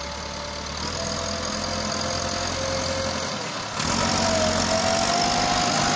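Massey Ferguson 385 tractor's four-cylinder diesel engine labouring as it pulls a fully loaded wood trolley. It becomes suddenly louder and higher-pitched about four seconds in.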